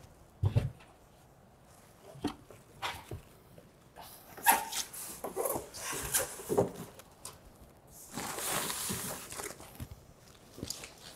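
Expanded polystyrene (styrofoam) packing squeaking and creaking as it is handled, with a dull thump about half a second in. Near the end comes a longer rustle as the plastic protective cover is pulled off the monitor.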